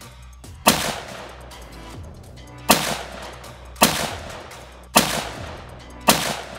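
Five rifle shots from a 7mm Remington, each a sharp crack with an echoing tail, spaced about one to two seconds apart, fired at frozen water bottles.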